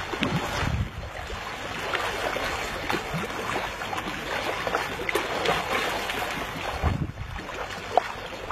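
Lagoon water lapping and splashing, with gusts of wind rumbling on the microphone about half a second in and again near the end.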